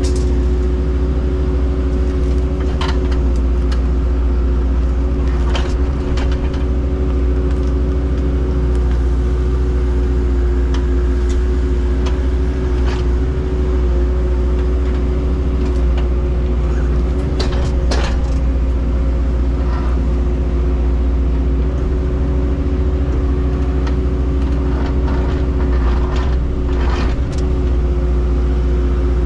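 Heavy construction equipment engine running steadily at a constant speed, with a steady hum and scattered short clicks and knocks.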